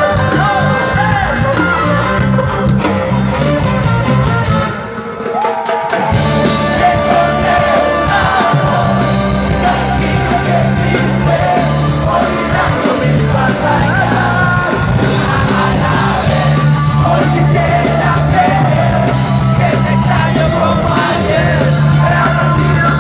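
Ska band playing live through a festival PA, with singing, heard from within the crowd. The band drops out for about a second around five seconds in, then comes back in full.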